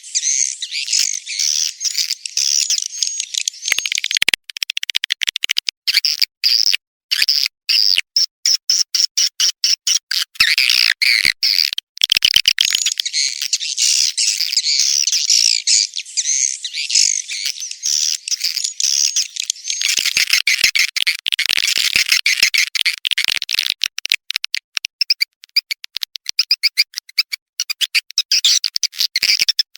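Swiftlet call lure recording: dense, high-pitched, continuous twittering and chirping of edible-nest swiftlets, played back to attract swiftlets to roost and nest. About four seconds in, the twittering breaks into a fast stutter of short clipped chirps for several seconds, and it does so again in the last few seconds.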